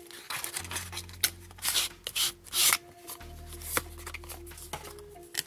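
Cardboard packaging of an eyeshadow palette being handled and opened by hand: short taps and clicks with several sliding, scraping rustles of paperboard, the longest about two seconds in.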